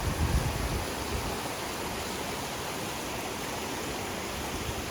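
Brook water rushing steadily over rocks, with a low rumble in the first second or so.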